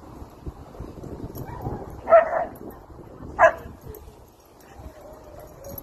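A dog barking: two sharp barks about a second apart, and another near the end.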